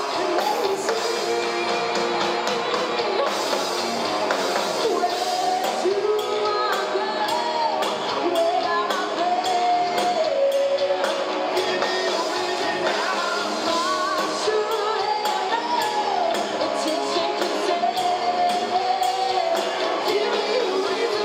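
Live rock band playing: a woman singing lead over electric guitars and a drum kit, with regular drum beats and cymbal crashes.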